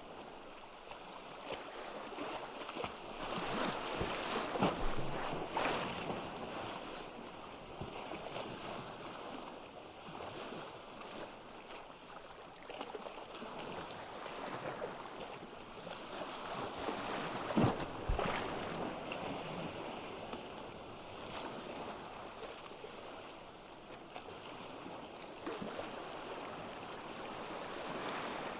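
Ocean waves breaking and washing on a beach: a steady hiss of surf that swells with a louder wave crash about four to six seconds in and again about seventeen seconds in.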